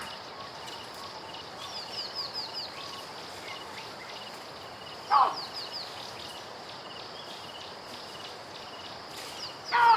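Baboon calling, two short loud calls about five seconds in and near the end. Between them, birds chirp in quick falling runs and a faint high chirp repeats steadily.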